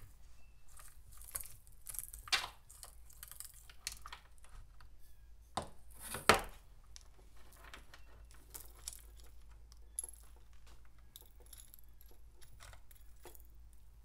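Steel saw chain being lifted off a top-handle chainsaw's guide bar and sprocket and handled loose, its links clinking and rattling in scattered bursts. The loudest clack comes about six seconds in.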